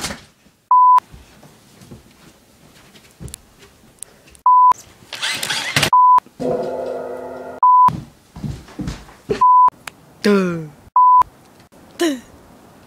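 A short, loud, steady electronic beep tone, six times at irregular intervals, each about a third of a second long. Between the beeps come a noisy burst, a buzzy held tone and two quick falling sweeps near the end.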